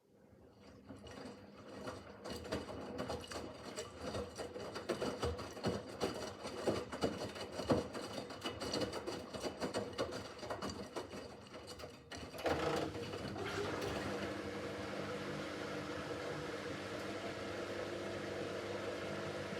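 Miele W5801 WPS washing machine starting up from silence, with irregular clattering and clicking as the drum turns. About twelve seconds in it changes to a steadier motor hum with a faint whine.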